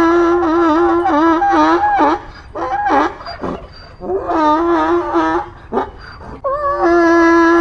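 Donkey braying: repeated long hee-haw calls, held notes broken by sharp swoops in pitch.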